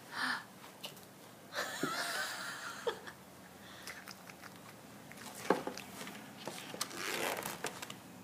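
A baby's mouth sounds and breathy noises as he kisses and mouths a picture book, with a few sharp clicks and taps from the book being handled.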